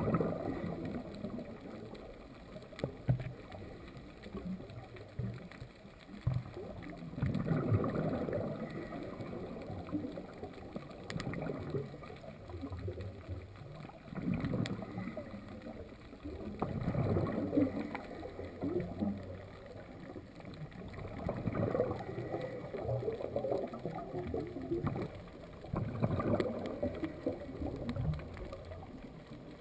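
Scuba regulator exhaust bubbles heard underwater, swelling in a burst every four or five seconds with the diver's breathing.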